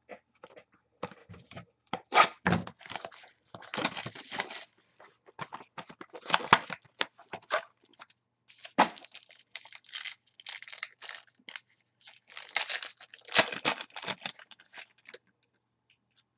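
A foil trading-card pack wrapper crinkling and tearing as it is ripped open by hand, in a long run of irregular crackles.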